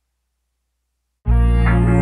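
Silence, then electronic background music cuts in suddenly just over a second in, with a heavy bass and a high sweep falling in pitch.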